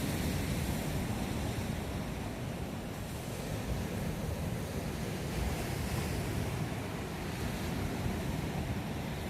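Atlantic surf breaking and washing up a sandy beach, a steady rushing with gentle swells in level. Wind buffets the microphone, adding low rumble.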